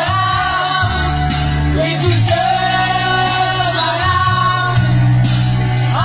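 A young man singing loudly into a microphone over music with a bass line. He holds two long, high notes one after the other.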